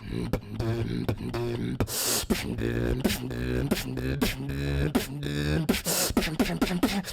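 Beatboxing: a held vocal bass line under a fast run of sharp mouth-made snare and hi-hat hits.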